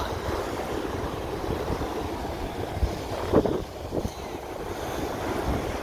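Wind buffeting the phone's microphone as a steady low rumble, over the wash of small waves breaking at the water's edge.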